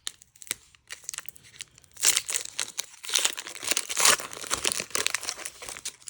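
Foil booster-pack wrapper of a Pokémon trading card game pack crinkling and tearing open as it is handled. There are light crackles at first, then louder bursts of crinkling about two seconds in and again about three to four seconds in.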